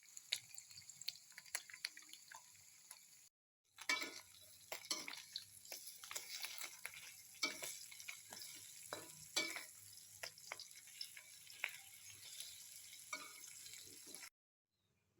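Food frying in a pan: a steady sizzle with frequent clicks and scrapes of a utensil stirring against the pan. It cuts out briefly about three and a half seconds in and stops about a second before the end.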